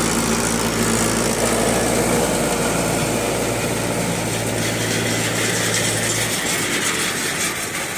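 Mahindra 575 DI tractor's four-cylinder diesel engine running steadily close by, over a steady hiss; the engine sound drops away about six seconds in.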